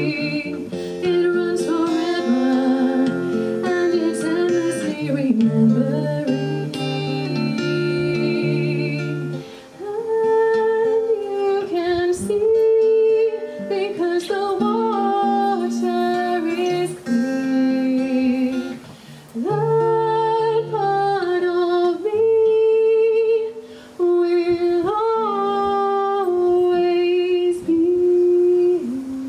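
A woman singing a gliding melody into a microphone over acoustic guitar accompaniment, with short pauses between phrases.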